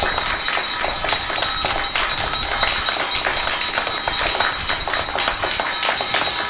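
Applause from many children clapping together, a dense steady patter of claps, with a thin high metallic ringing running over it.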